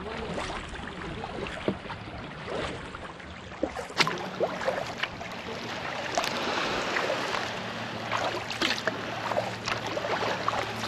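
Water lapping and splashing around a sea kayak's hull, with scattered paddle splashes and drips. A single sharp splash or knock about four seconds in is the loudest sound.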